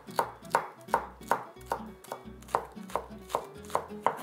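Large kitchen knife chopping celery and green onion on a wooden cutting board, each stroke knocking the blade against the wood in a steady rhythm of about three strikes a second.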